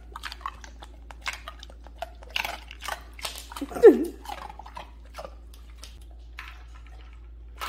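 Siberian husky moving about on a hardwood floor and going to an ice-water bowl: scattered light clicks and clinks of claws and ice cubes. About four seconds in there is one short falling grumble from the dog, the loudest sound.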